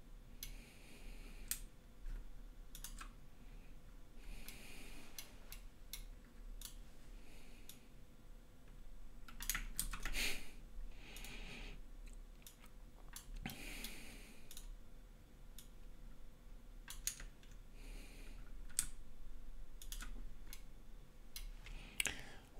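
Computer mouse clicks and keyboard key presses, scattered and irregular, with a few short soft hisses between them.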